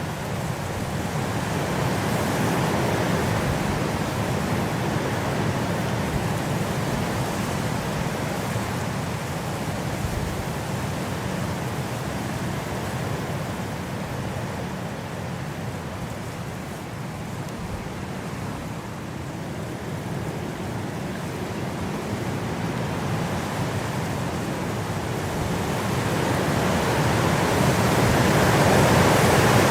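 Steady wind noise, rising and falling in gusts, with a stronger swell near the end.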